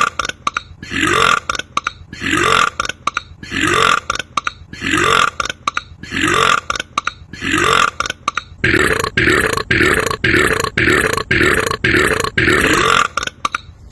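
A man's short burps repeated at a steady, even rhythm, about one burp every second for most of the stretch, then quickening to about two a second in the last five seconds.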